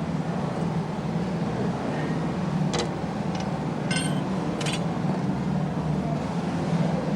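A steady, engine-like mechanical drone, with four sharp metallic clinks about three to five seconds in.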